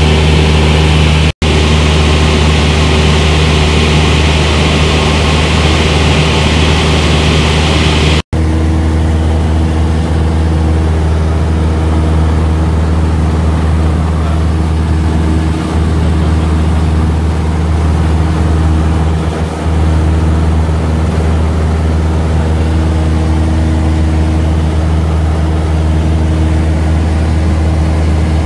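Light high-wing plane's piston engine and propeller droning steadily in cruise, heard inside the cabin. The drone cuts out briefly twice, about a second in and about eight seconds in, and after the second break it has less hiss.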